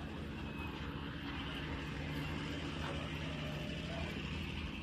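Hino dump truck's diesel engine running steadily as the truck drives slowly across the site, a low, even engine note.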